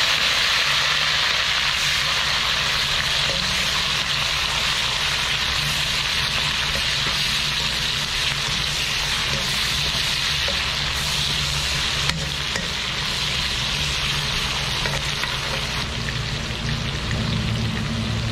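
Sliced onions sizzling in hot oil in an aluminium wok, a steady frying hiss, while a metal ladle stirs them.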